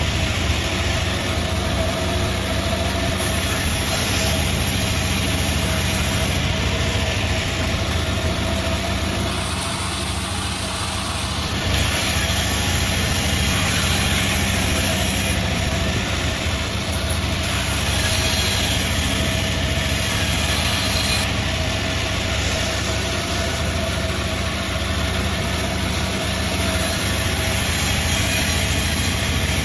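A 36-blade gang sawmill running steadily, with a constant mechanical noise and a held mid-pitched tone. It eases slightly about ten seconds in, then comes back to full level.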